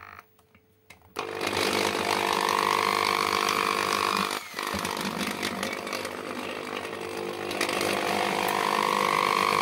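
Electric drill with a bit for plastic and glass boring a hole through the bottom of a clear plastic bucket. The motor starts about a second in, cuts out briefly near the middle, then runs again. A squeal rises in pitch twice as the bit cuts into the plastic.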